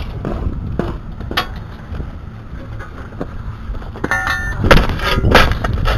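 Metal bow rake scraping and dragging through rocky, gravelly dirt in short strokes, the scrapes louder near the end, over a low rumble of wind on the microphone.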